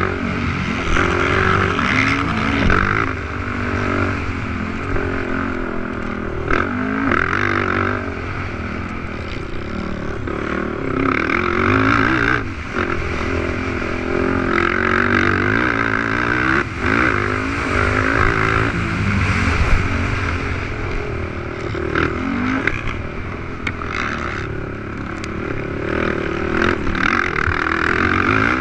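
Racing 450cc quad engines running hard, the revs rising and falling again and again as the riders accelerate, shift and back off.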